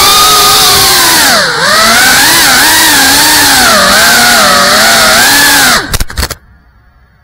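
GEPRC CineLog 35 FPV quadcopter's brushless motors and propellers whining, picked up by the camera mounted on the drone, the pitch rising and falling as the throttle changes, with a deep dip about a second and a half in. Near the end there are a few sharp knocks as the drone comes down at ground level, and the motors stop.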